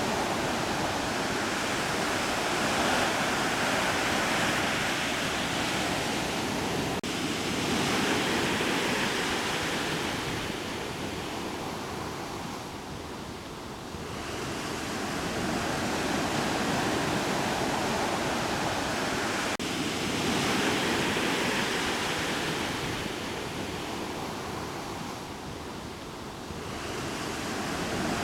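Ocean surf washing ashore, swelling and easing off about every twelve seconds.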